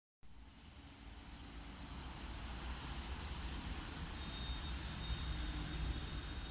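Distant city traffic: a steady low hum of cars on the streets below, starting abruptly. A faint, thin, high steady tone joins about four seconds in.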